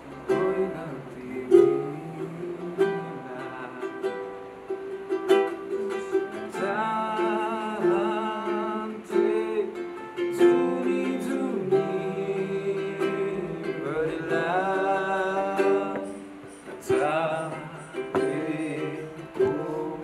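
Music: a plucked string instrument strummed steadily, with a voice singing over it from about six seconds in.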